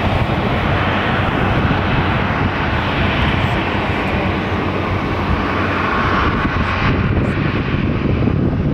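Boeing 737 Classic jet with CFM56-3 turbofan engines running loud and steady, an even rushing jet noise with a low rumble, whose higher part fades about seven seconds in.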